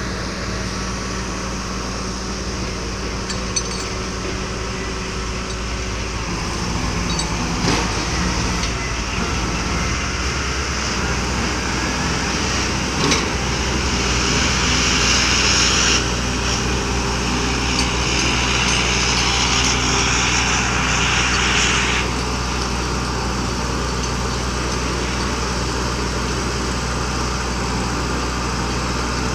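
Diesel engine of a crawler excavator-based piling rig running steadily, with a few isolated knocks. About halfway through, a louder hiss joins in and cuts off suddenly several seconds later. No hammer blows are heard.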